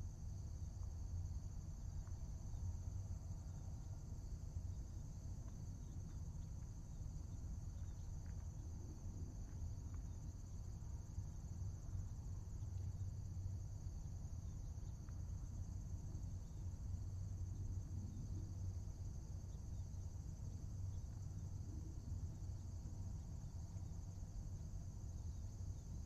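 A steady, high-pitched insect chorus that never lets up, over a constant low rumble.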